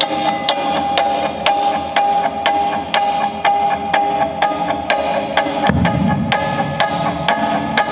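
Nylon-string classical guitar played live, over a steady woodblock-like click about twice a second. A low thud comes about six seconds in.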